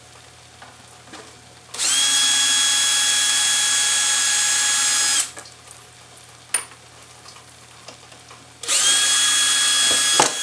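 Power drill driving 1/4-20 machine screws out of threaded inserts in a wooden rack. It runs in two steady, whining spells, each spinning up at the start, and a sharp click falls in the pause between them.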